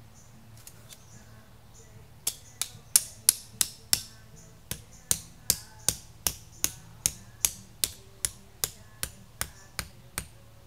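A hammer driving a tent stake into the ground: a run of about twenty sharp strikes, a little under three a second, starting about two seconds in with a brief pause near the fourth second.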